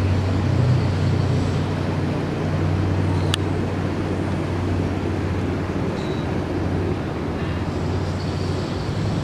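Steady low drone of a boat's outboard engine running under way on open water, with one sharp click about a third of the way through.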